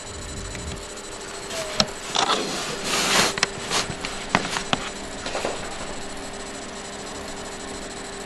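Laptop being bumped and handled close to its built-in microphone: rubbing and scraping with several sharp clicks and knocks from about one and a half to five and a half seconds in, over a steady hum.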